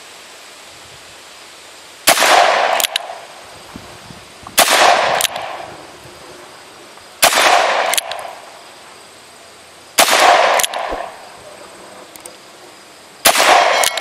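Ruger GP100 stainless .357 Magnum revolver fired five times in slow, steady succession, about one shot every two and a half to three seconds. Each loud shot rings on for about a second and is followed, under a second later, by a second short sharp crack.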